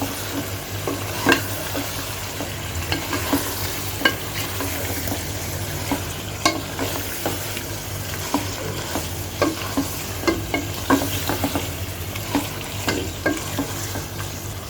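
Raw chicken pieces frying in spiced masala in a pot, sizzling steadily, while a stirring utensil scrapes and knocks against the pan at irregular intervals as the chicken is turned through the masala.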